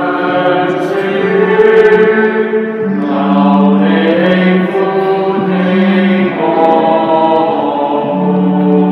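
Choir singing the short sung congregational response to a petition of the prayers of the faithful, in slow, long-held notes that shift pitch twice.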